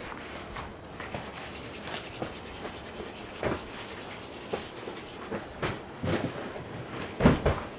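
Irregular scuffs, rustles and knocks of people moving about and handling gear at the foot of a boulder, over a steady hiss, with two louder thumps near the end.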